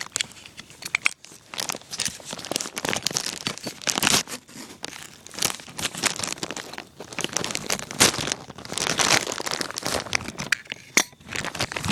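Hands opening a mail-order package, with packaging crinkling and tearing in irregular bursts of rustling and crackling.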